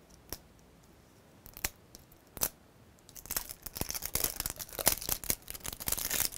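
Plastic surprise egg being opened by hand: a few single clicks, then from about halfway on a dense crinkling and tearing of plastic packaging.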